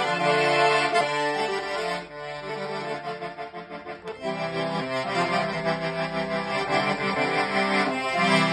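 Piano accordion playing a traditional Chechen melody with chords and melody together. The playing thins out and drops in level about two seconds in, then comes back full about four seconds in.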